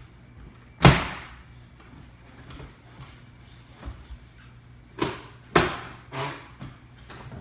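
Four sharp thumps: the loudest comes about a second in, and three more follow close together between about five and six seconds in, each dying away quickly.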